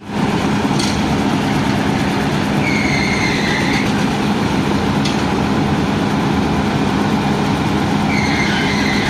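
Steady engine-like drone with a constant low hum, starting abruptly and holding level. A faint high wavering tone sounds twice, once about three seconds in and again near the end.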